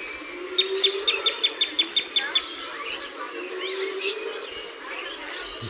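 Woodland birds singing. About half a second in, one bird gives a rapid run of about ten sharp, high, evenly spaced notes, and other chirps and calls follow.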